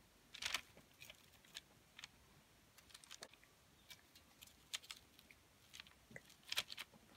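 Metal spoon tapping and scraping on a parchment-lined baking tray as it sets down and pushes off batter-coated clover heads: a scatter of faint, soft clicks and scrapes, the clearest about half a second in and near the end.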